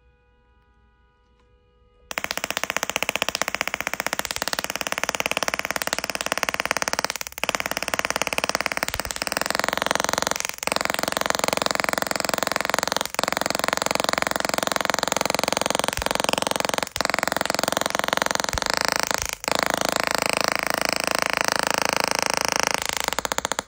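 Small desktop Tesla coil firing sparks into the air: a loud, harsh buzzing crackle made of rapid pulses, starting about two seconds in. Its pitch shifts as it plays, with a few brief breaks, and it stops just before the end.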